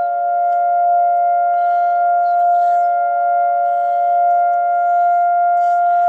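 Civil-defence air-raid siren sounding loudly on one steady, unwavering pitch: a rocket-attack alert, which the listener takes for an attack from Gaza.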